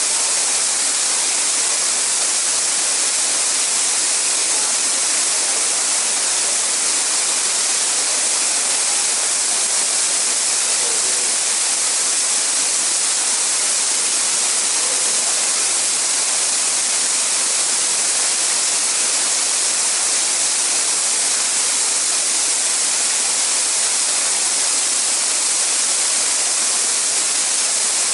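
Waterfall rushing: a loud, steady hiss of falling water that never changes.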